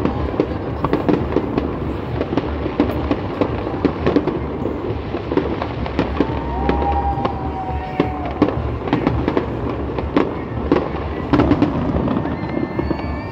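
Fireworks display: a dense, continuous run of pops and crackles from bursting shells, with a held tone lasting about two seconds around the middle.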